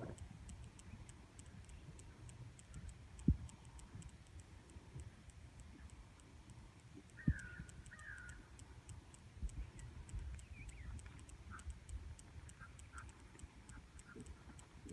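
Faint outdoor ambience: an even, fast high ticking with a low rumble underneath, two sharp thumps about three and seven seconds in, and a bird giving two short calls just after the second thump, with a few scattered chirps near the end.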